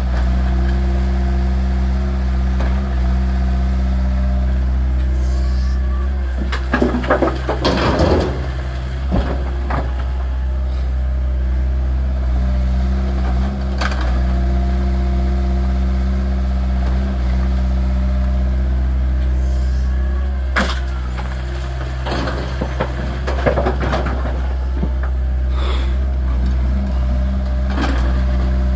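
Diesel engine of a Hitachi mini excavator running steadily under load. There are two short bursts of rattling clatter, around seven seconds in and again around twenty-three seconds in.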